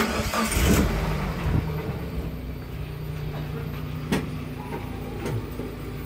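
Small pickup truck's engine starting with a sudden burst, then settling into a steady idle. A single sharp click sounds about four seconds in.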